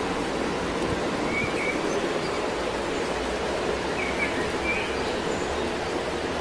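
Steady rushing outdoor background noise, even and unbroken, with a few short high chirps about a second in and again about four seconds in.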